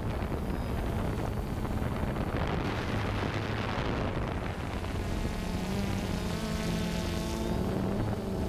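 Electric motors and propellers of an RC aircraft running, heard from the camera it carries, with wind rushing over the microphone. About five seconds in, the motors' pitched hum stands out more clearly above the wind.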